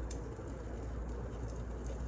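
Wood fire burning in a fireplace: a steady low rush of flames with a couple of sharp crackles, one just after the start and one near the end.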